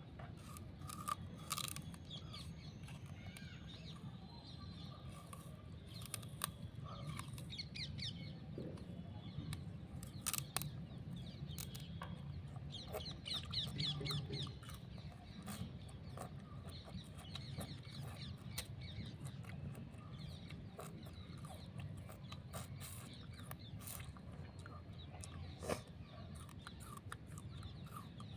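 Chickens clucking, mixed with scattered sharp crunching clicks from raw sugarcane being bitten and chewed, over a steady low hum.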